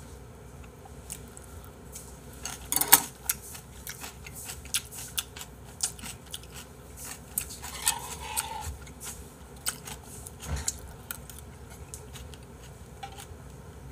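Close-miked chewing and crunching of kimchi, with small clicks of chopsticks and a metal spoon against bowls. The loudest sound is a short clatter about three seconds in.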